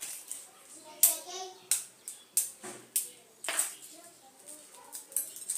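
Shell of a hard-boiled egg being cracked and peeled off by hand over a wooden chopping board: a series of sharp crackles and taps, about five in the first four seconds, then softer picking.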